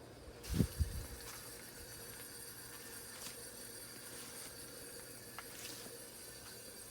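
Heil heat pump outdoor unit just after shutting off at the end of a defrost cycle: a low thump about half a second in, then a faint steady hiss with a few light ticks.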